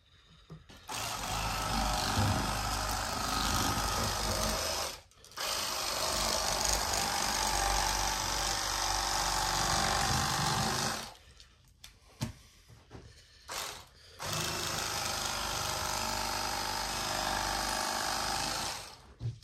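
Battery-powered electric fillet knife running in three spells of a few seconds each, with short pauses between, as its blades cut a fillet from a fish.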